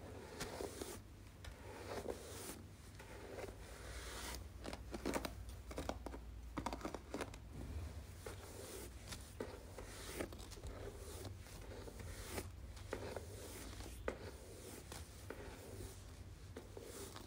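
Hairbrush bristles stroked across the microphone, a series of soft, scratchy brushing strokes at uneven intervals.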